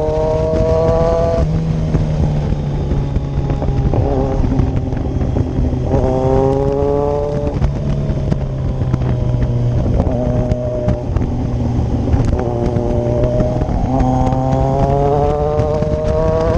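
Kawasaki Z1000 inline-four engine accelerating hard through the gears: the pitch climbs, drops back at an upshift about a second in, climbs again around six seconds in, holds steadier, then climbs once more near the end. A steady low rumble runs underneath.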